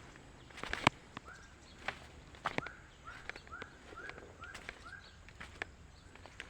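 Footsteps with a sharp step or snap about a second in, while a bird calls a run of about seven short, arched notes, roughly two a second.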